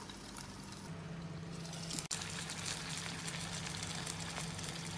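Pomfret frying in shallow coconut oil in a pan: a steady, fairly quiet sizzle with scattered crackles that come thicker after about two seconds.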